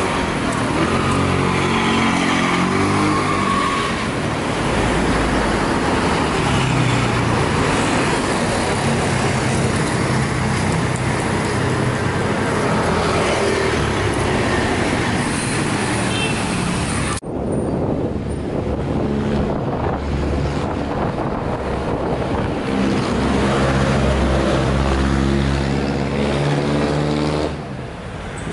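Steady street traffic: cars, motorbikes and motorcycle tricycles passing with engines running. About two-thirds of the way in the sound cuts abruptly to a duller traffic rumble with less hiss.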